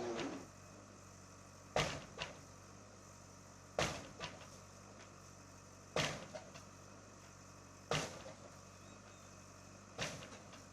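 Heavy demolition machine's engine running steadily under five loud knocks about two seconds apart, each followed by a smaller knock, as it strikes the building being torn down.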